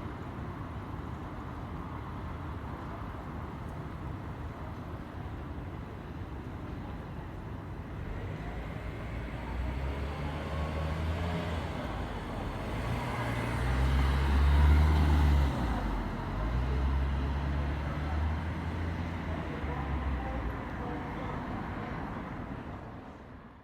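City street traffic with a large vehicle's engine passing close, its low note stepping in pitch and loudest about two-thirds of the way through. The sound fades out at the end.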